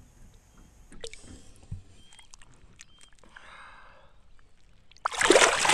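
Faint small clicks and a soft slosh of water as a bass is held by the lip at the surface beside a small boat. Near the end comes a loud burst of splashing, about half a second long.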